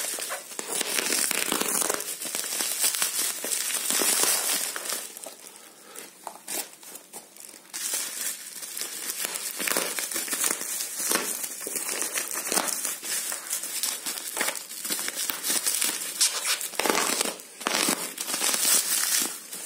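Plastic bubble wrap crinkling and crackling as hands pull it about and cut it open with a utility knife, quieter for a couple of seconds about five seconds in.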